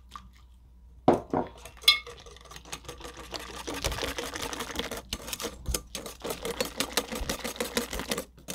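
A whisk beating molasses and egg filling in a bowl: a quick, steady clatter of whisk against bowl that starts about two seconds in, after a couple of sharp clinks.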